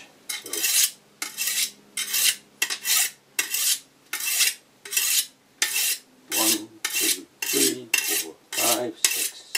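A long silicon carbide sharpening stone is stroked along the edge of a thin pressed-steel sickle blade to hone it. The stone makes an even run of scraping rasps, roughly one every 0.7 seconds, about thirteen strokes.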